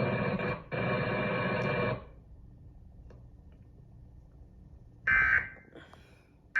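Emergency Alert System end-of-message data burst: a short, shrill digital warble about five seconds in, the first of a series of identical bursts, with the next one starting just at the end. Before it, a loud stretch of harsh noise lasting about two seconds, cutting out briefly partway, then low hiss.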